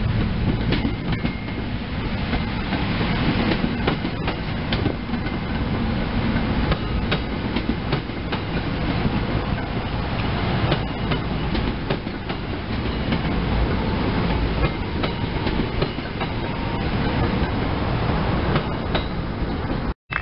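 SEPTA Silverliner IV electric multiple-unit train rolling past at close range: a steady heavy rumble of the cars, with the steel wheels clicking irregularly over rail joints. The sound cuts off abruptly at the end.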